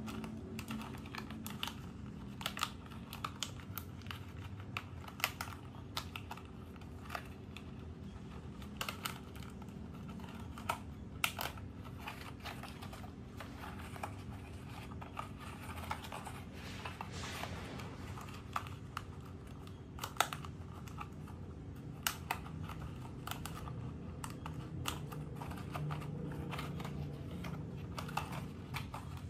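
A stiff pleated paper lampshade being handled and worked onto a thin wire frame: irregular light clicks and crinkling of the paper folds.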